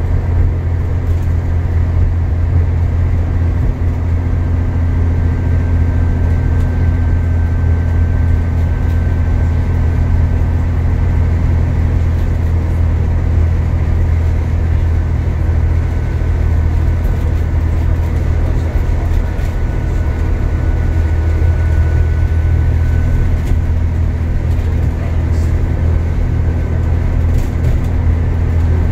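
Steady interior drone of an Alexander Dennis Enviro400 MMC (E40D) diesel double-decker bus cruising along the road: a strong low engine and drivetrain hum mixed with road and tyre noise. A faint steady high whine runs over it.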